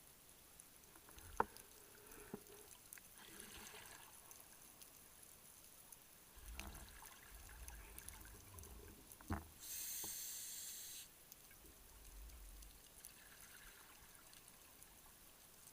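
Scuba regulator breathing heard underwater: a hissing inhale about ten seconds in and a fainter one earlier, with low rumbling of exhaled bubbles and a few sharp clicks.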